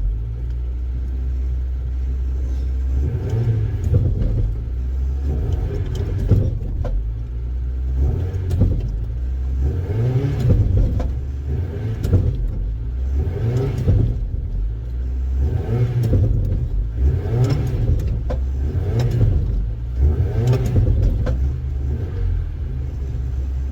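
Ford Cortina P100 pickup's Pinto four-cylinder engine running in gear with the clutch pedal down, rising and falling in repeated surges while a rear wheel spins. The rust-stuck clutch plates are not breaking free.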